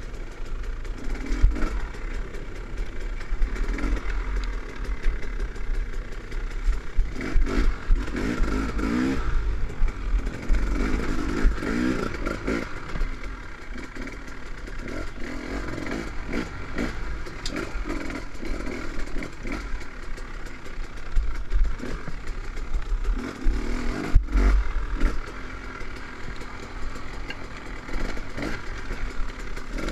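KTM 300 XC-W two-stroke dirt bike engine on the trail, revving up and falling back again and again as the throttle is worked.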